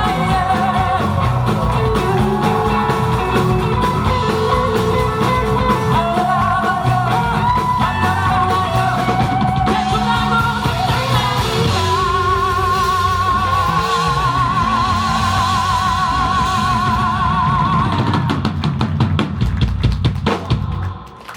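Live pop-rock band with a male singer, drums, guitar and bass. About halfway through the singer holds one long note with vibrato, and near the end the drums play a fast fill of repeated hits before the sound drops briefly.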